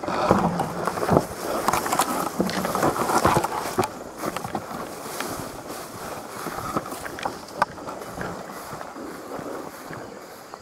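Rustling and scuffing footsteps of a player moving through brush, busy for about four seconds and then quieter.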